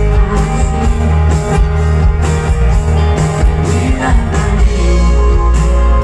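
Live rock band playing loud: electric guitar, electric bass and a drum kit keeping a steady beat, with a male lead vocal singing over it.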